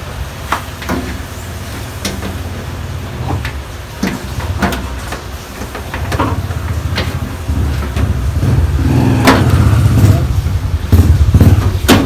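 Plastic clicks and knocks of a front-load washing machine's front door panel being hooked onto and pressed against the cabinet, over a low engine rumble that grows louder in the second half.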